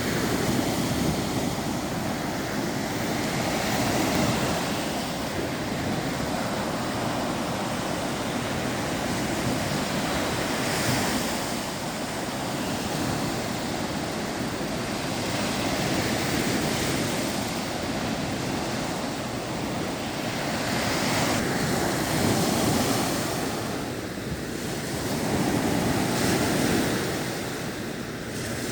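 Baltic Sea surf: a continuous rush of waves washing in, swelling and easing every few seconds.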